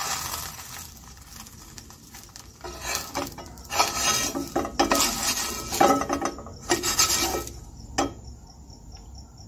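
Metal spatula scraping and knocking against a bare metal frying pan as a rolled crêpe is turned and lifted, in irregular strokes with one sharp click about eight seconds in.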